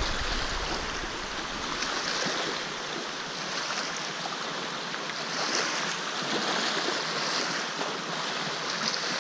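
Wind-driven lake waves of two and a half to three feet lapping and splashing against a rocky shoreline, a steady wash with louder surges every couple of seconds.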